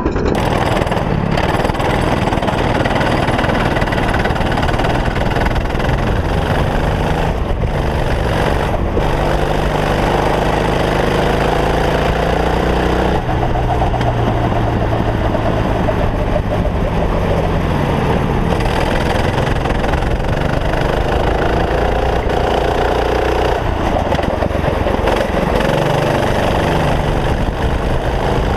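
Racing kart engine running hard on track, its pitch climbing along the straights and dropping sharply when the throttle comes off for corners.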